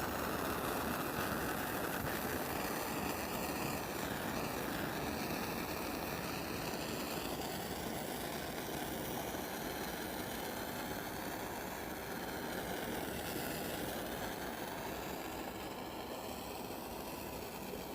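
Propane torch flame hissing steadily as it scorches pallet wood boards.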